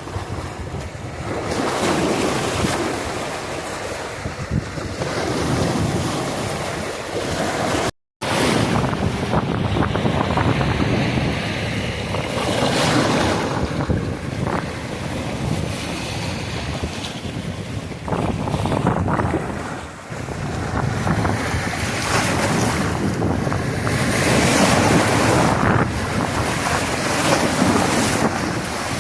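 Ocean waves washing in, swelling and easing every few seconds, with wind rumbling on the microphone. The sound cuts out completely for a moment about eight seconds in.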